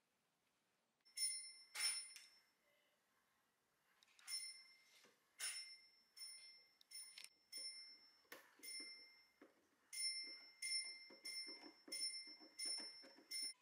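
A series of light metallic strikes, each ringing briefly with the same bell-like tones. They start about a second in and come irregularly, one or two a second, with a pause of about two seconds after the first pair.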